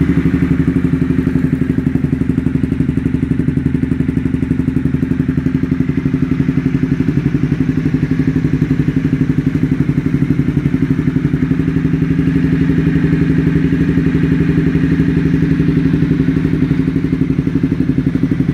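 Honda CBR300R's single-cylinder engine idling steadily through a 10-inch aftermarket exhaust fitted with a dB-killer baffle, still loud even with the baffle in.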